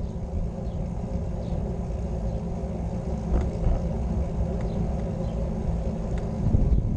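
Steady low rumble of a vehicle rolling along a road, with a few small knocks from bumps in the pavement.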